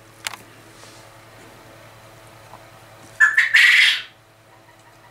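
Male quail calling once from across the shed, about three seconds in: a brief note followed by a harsh, raspy burst, under a second in all. A short sharp click sounds just before it near the start.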